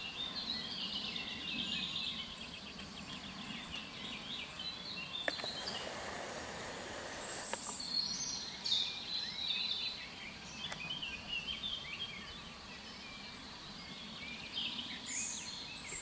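Small birds chirping and singing over a steady outdoor background hiss, with a wider rush of noise for a few seconds in the middle.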